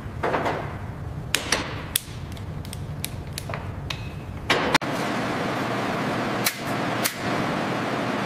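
Sharp metallic clicks and clanks of metal parts and hand tools being handled on a steel workbench, about a dozen irregular knocks. About halfway through it gives way to a steady hiss with two more knocks in it.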